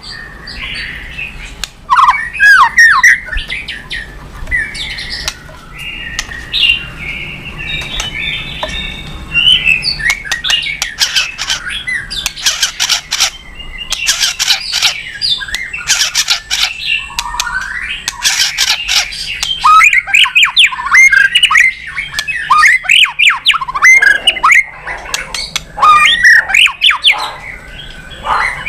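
A white-rumped shama singing a loud, varied song packed with mimicked phrases: clear whistled notes, a stretch of harsh rasping bursts in the middle, and quick runs of sliding notes near the end.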